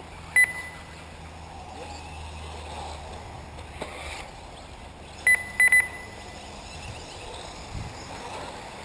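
Short electronic beeps: one about half a second in, then three in quick succession about five seconds in, over a low steady hum.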